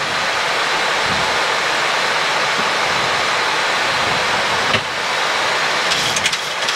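Steady rushing cockpit noise on the flight deck of a Boeing 737 in flight on approach: airflow over the aircraft, with a couple of faint knocks and some faint crackles near the end.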